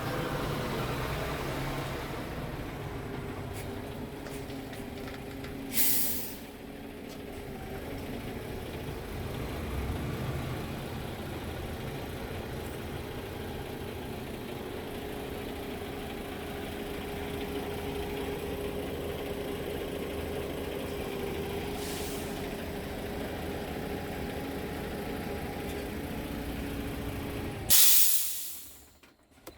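Scania R tractor unit's diesel engine idling steadily, with sharp hisses of compressed air from the truck's air system, one about six seconds in, a faint one later and a loud one near the end, after which the sound drops away almost to silence.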